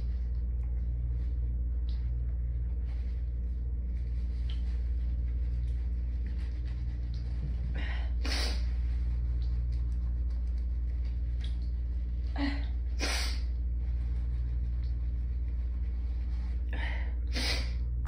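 A person with hay fever sniffing and breathing sharply through the nose four times, two of them close together, between sneezes, over a steady low hum.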